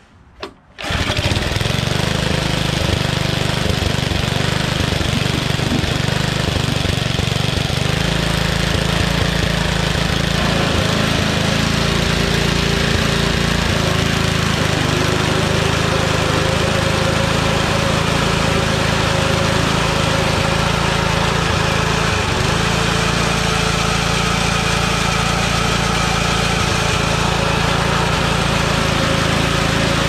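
Briggs & Stratton 3 hp engine on a Toro reel mower pull-started, catching at once about a second in and then running steadily at a fixed speed.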